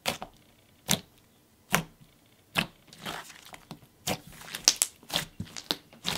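A hand pressing and kneading a thick, fluffy clay slime, giving sharp crackling pops of trapped air. They come about once a second at first, then in a quicker cluster of pops and squishes over the last two seconds.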